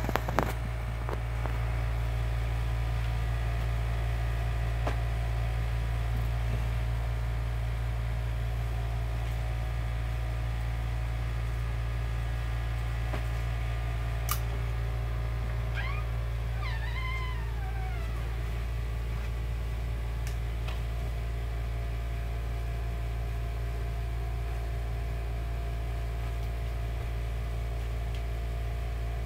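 A steady low hum runs throughout. Just past the middle, a cat meows once, a drawn-out call of about two seconds that rises and falls in pitch. A single sharp click comes shortly before the meow.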